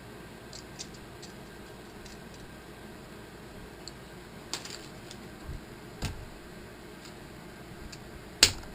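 A few light clicks and taps of metal parts being handled, as an ER32 collet is pushed into its clamping nut, with a sharper click near the end as it pops into place.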